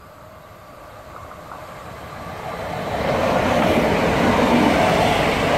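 Rodalies electric commuter train approaching and passing close at speed. Its wheel and rail noise swells over the first three seconds, then holds loud and steady as the carriages go by, with a faint whine running through it.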